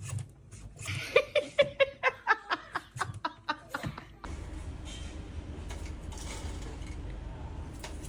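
A person laughing in a quick run of 'ha-ha' bursts, about four a second, for roughly three seconds. About four seconds in, the laughter cuts off into a steady low hum and hiss.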